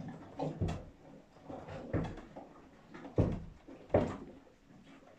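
Irregular dull knocks and thuds, about four in five seconds, the two near the end the loudest.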